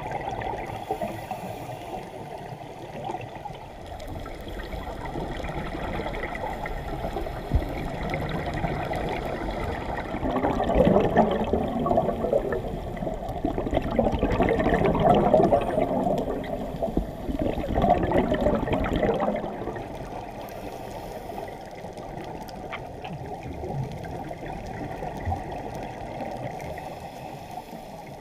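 Underwater sound through a GoPro housing: a steady, muffled rush of water. A louder stretch of gurgling scuba exhalation bubbles starts about ten seconds in and lasts some ten seconds.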